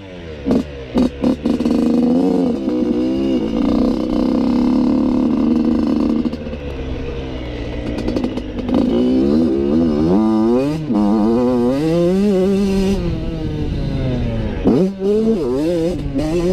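Motocross bike engine heard onboard, revving up and down as the rider accelerates and shifts through the gears. A few sharp knocks come in the first couple of seconds.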